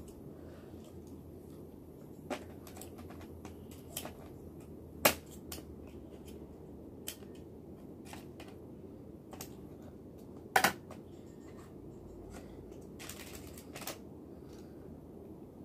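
Scattered sharp clicks and crackles of thin plastic keyboard parts being handled. The loudest are a snap about five seconds in and a double snap about ten and a half seconds in, over a steady low hum.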